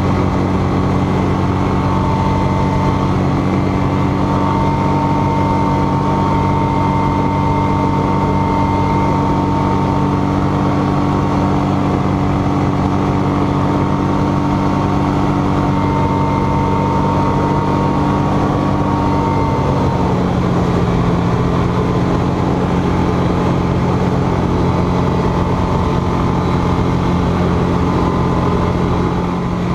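Denney Kitfox light aircraft's engine and propeller droning steadily, heard from inside the cockpit. About two-thirds of the way through, the engine note drops slightly.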